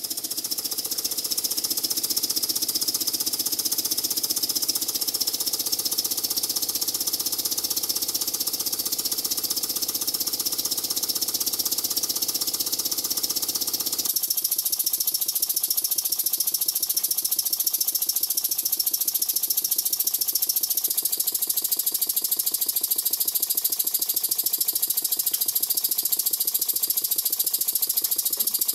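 Two-cylinder oscillating model steam engine running fast on compressed air, with air fed to one cylinder only, so that cylinder drags the other. It makes a rapid, even run of exhaust beats under a strong hiss of escaping air. The engine is running well. About halfway through, the lower hum drops away and the beat and hiss carry on.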